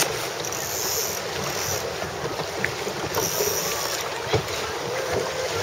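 Wind buffeting the microphone over the wash of water, with a single sharp knock about four seconds in.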